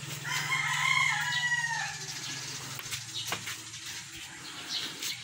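A rooster crowing once, a single call of under two seconds shortly after the start.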